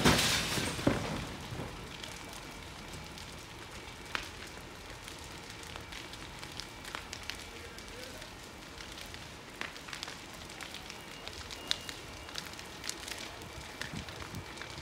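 Building fire crackling and popping: a steady rushing hiss broken by many sharp snaps at uneven intervals. A louder rush of noise comes in the first second, as the flames flare up.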